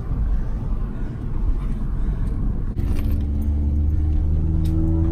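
Car engine running with road rumble, heard from inside the cabin while driving, with a few light clicks and rattles.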